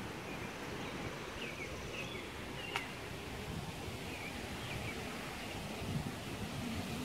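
Outdoor garden ambience: a few short, scattered bird chirps over a steady low background rumble, with one sharp click a little under three seconds in.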